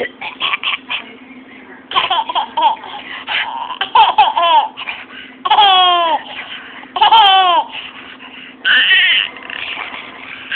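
A baby laughing hard in repeated bursts, several of them long, high peals that fall in pitch.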